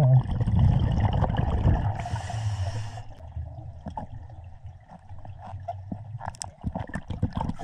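Underwater scuba breathing: a hiss of breath through the regulator about two seconds in, over a low rumble of moving water. Scattered clicks and knocks follow from gloved hands and gear against the rocky riverbed.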